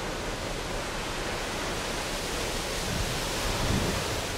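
Steady rushing wind, a little louder for a moment about three and a half seconds in.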